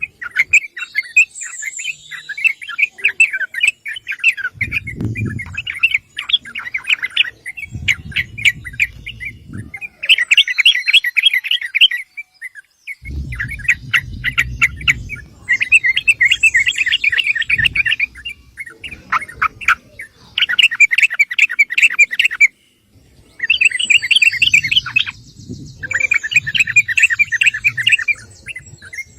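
Yellow-vented bulbul singing: repeated short phrases of quick, bubbly chattering notes, with brief pauses between phrases and a low rumble under some of them.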